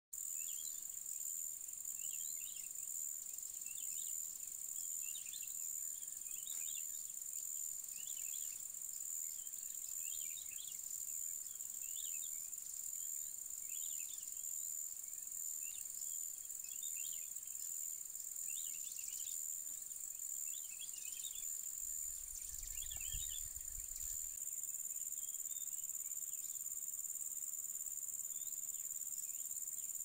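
Steady high-pitched insect chorus, with short chirps repeating every second or two until near the end.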